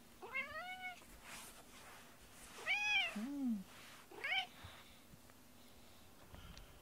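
Domestic cat meowing three times, the middle meow the longest and loudest, the last one short and rising.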